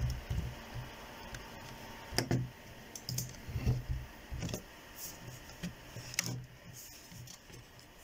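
Typing on a computer keyboard: irregular key taps and clicks in short runs, with a few louder taps.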